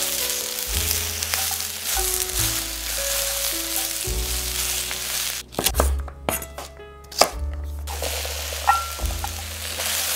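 Chopped aubergine, bell pepper and onion sizzling in oil in a pot as they are stirred. About halfway through, the sizzle gives way to a quick run of knife chops through celery sticks on a wooden chopping board, one chop near the end the loudest. Then the sizzling comes back. Background music plays throughout.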